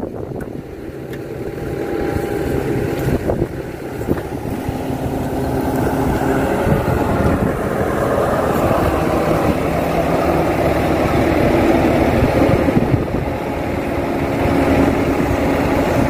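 KATO hydraulic excavator's diesel engine running under load as the arm lifts and swings a hanging pump. The revs climb over the first few seconds and then hold high and steady.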